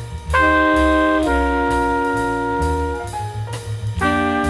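Jazz background music: horns playing held chords that change every second or so over a bass line.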